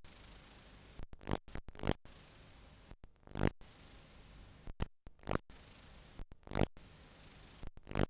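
Steady hiss from a blank stretch of analogue videotape playing, broken every second or so by a sudden dropout and a sharp crackle.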